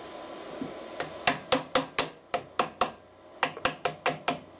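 A hammer taps a steel drift to drive a bearing down into a milling machine's head housing: about a dozen quick, ringing metal-on-metal taps at roughly four a second, starting about a second in, with a short pause near the middle.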